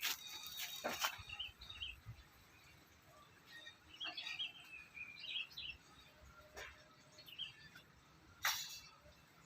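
Birds chirping in short warbling phrases, with a few sharp taps or clicks, the loudest near the end.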